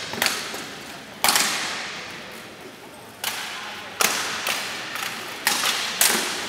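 Steel swords striking plate armour and shields in an armoured sword-and-shield duel: about seven sharp blows at uneven intervals, each with a metallic ring that dies away over about a second.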